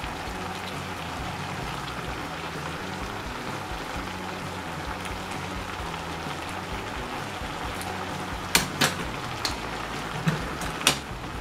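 Vegetables sizzling as they cook in an aluminium pot on a gas burner, a steady hiss. A few sharp clicks come in the last few seconds.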